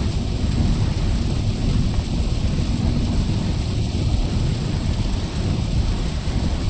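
Steady low rumble and rain hiss of a car driving in the rain.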